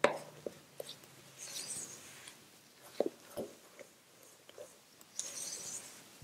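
Spatula stirring sweet cassava starch into a creamy batter in a stainless steel bowl: two stretches of soft scraping and swishing, with scattered light knocks of the spatula against the bowl, the loudest about three seconds in.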